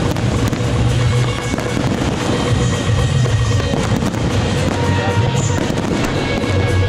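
Fireworks display crackling and popping over loud music with a throbbing bass beat.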